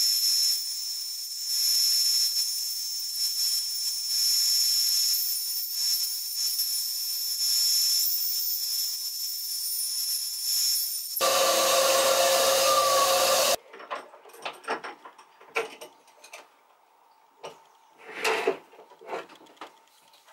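Record Power bandsaw running and cutting an oak spoon blank: a steady high blade hiss that swells and eases as the wood is fed. About eleven seconds in, a louder, fuller stretch of sawing cuts off abruptly after a couple of seconds. Scattered knocks and clatters of wood being handled follow.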